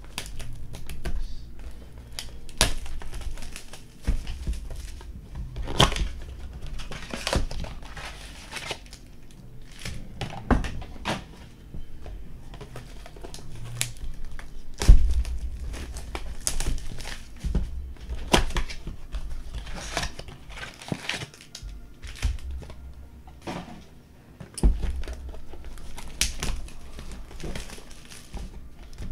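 Trading-card packaging being handled, crinkled and torn open by hand: irregular crackles and rustles of wrap and cardboard, with handling bumps on the table and one sharp thump about halfway through.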